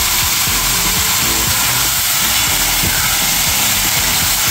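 Marinated chicken pieces sizzling in a hot, dry pan with no oil, cooking in their own juices, with background music playing.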